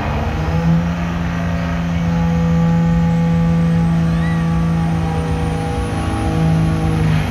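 Diesel pickup truck engine running hard under load as it pulls a weight-transfer sled, holding a steady pitch with a brief dip near the end. A faint high whistle rises slowly throughout.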